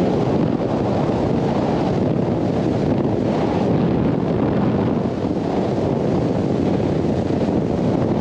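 Steady wind buffeting the microphone on a bass boat running at speed, with the Mercury 200 HP Pro XS four-stroke outboard and the water rushing under the hull beneath it.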